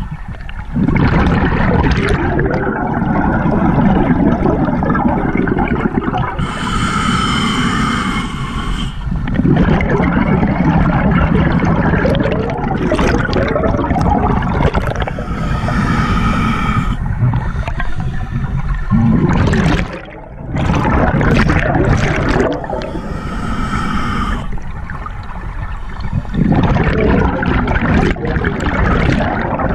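A scuba diver breathing through a regulator underwater. Three short inhales, a hiss through the regulator with a faint whistle, each alternate with a long bubbling rumble of exhaled bubbles, about every eight seconds.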